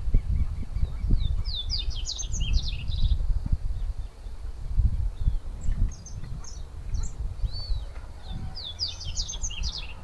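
A bird's phrase of rapid, high, downward-sliding whistled notes, given twice about seven seconds apart, with a few scattered high notes between, over a constant low rumbling noise.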